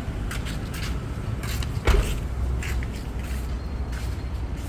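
A steady low vehicle rumble with a scatter of short clicks and knocks, and one heavier thump about two seconds in.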